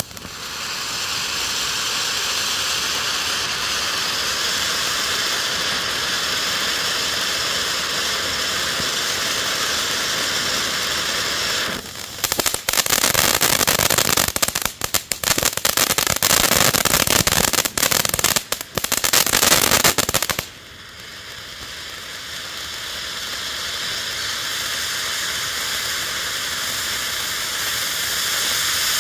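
Weco Ocean of Lights firework fountain spraying sparks with a steady hiss. About twelve seconds in it turns louder and crackles densely for about eight seconds. Then it drops back to a hiss that grows louder again.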